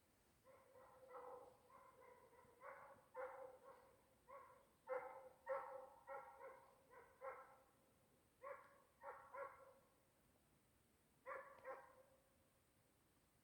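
Faint, distant hunting hound baying on the trail of game: a run of short barks in quick clusters, a pause, then two more barks near the end.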